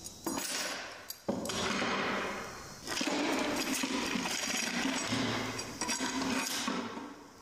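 A steel threaded rod clinking and scraping as it is handled on a workbench and pushed through the holes in the arms of a wooden C-clamp.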